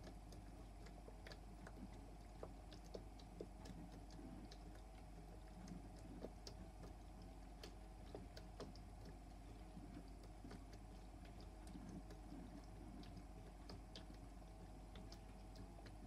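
Toy washing machine running its wash cycle, faint: a small motor hums steadily with a slight waver, and scattered light ticks and clicks come irregularly throughout.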